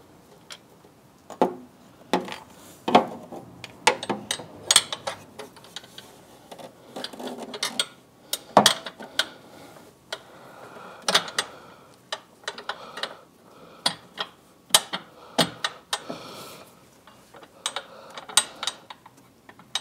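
Irregular small metallic clicks and clinks of a steel washer and nut being handled and started by hand onto the threaded stud of a battery hold-down bracket.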